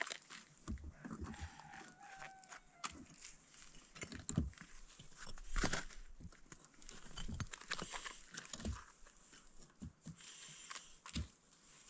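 Rough stones being set and shifted on a mortared stone wall: irregular knocks, clicks and scrapes of stone on stone and mortar, the loudest knocks about four and six seconds in. A chicken calls briefly about a second in.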